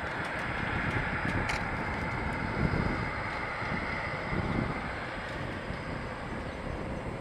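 Eurofighter Typhoon's twin EJ200 turbofan engines running at taxi power, a steady distant jet hiss, with wind gusting on the microphone.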